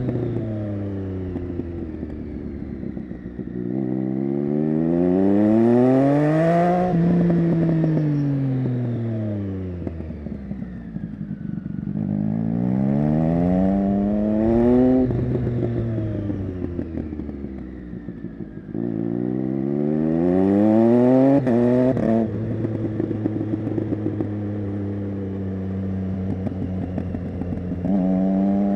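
Triumph Street Triple 675's inline three-cylinder engine through an SC-Project Conic exhaust, revving up and then falling back on the overrun three times, with crackles as the revs drop. Near the end it holds a lower steady note before the revs begin to climb again.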